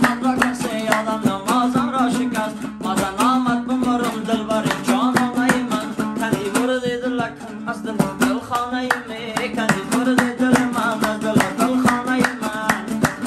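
Dambora, the Afghan long-necked two-stringed lute, played in a fast instrumental passage: rapid plucked strokes carry a melody over a steady low note.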